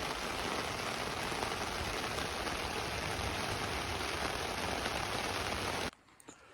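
Steady hiss of heavy rain that cuts off abruptly near the end, leaving only faint ticks.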